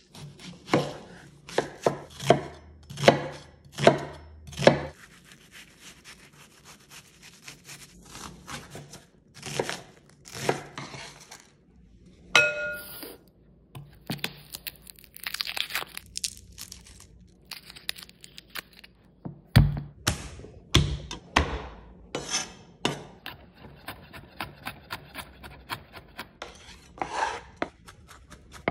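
Chef's knife chopping garlic and onion on a wooden cutting board: runs of sharp knocks, a few heavier thumps about two-thirds of the way in, and a short ringing tone near the middle.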